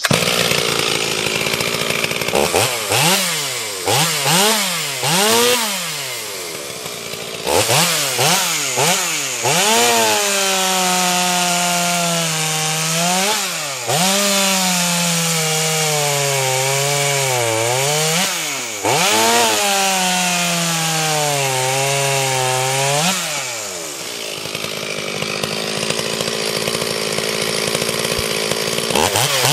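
Freshly ported Stihl MS440 (044) chainsaw revved up and down in short throttle blips, then making three cuts through a log, its pitch sagging under load in each cut. It drops back to a steady, quieter idle for the last few seconds.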